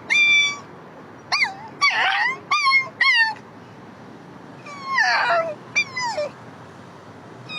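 A man imitating a dog's whimpering yelps: short, high, whining calls that fall in pitch. About five come in quick succession in the first three seconds, then after a pause three more come around five seconds in.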